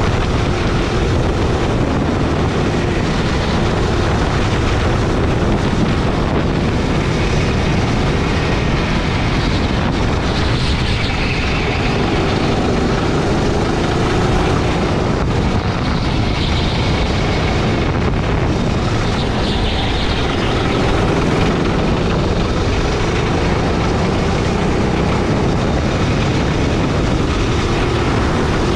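Gasoline go-kart engine heard onboard while lapping, its pitch rising and falling as the kart speeds up and slows for corners.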